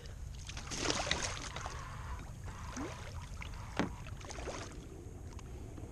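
Water splashing and dribbling beside a kayak as a red drum is let go from a lip grip and swims off, with a few light knocks.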